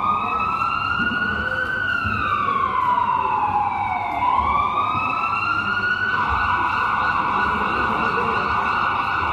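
Wailing emergency-vehicle siren, played as a sound effect: its pitch climbs, sinks slowly and climbs again, then holds high from about six seconds in.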